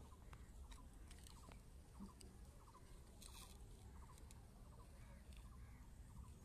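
Near silence: a few soft clicks of plastic building blocks being handled and set down, over a faint short chirping call that repeats about every two-thirds of a second.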